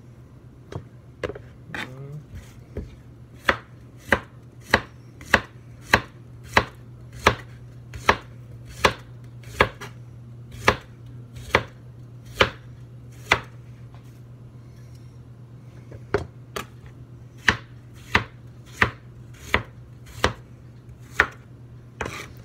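Chef's knife slicing green bananas on a plastic cutting board: a sharp knock each time the blade strikes the board, about one and a half a second, with a pause of a few seconds past the middle.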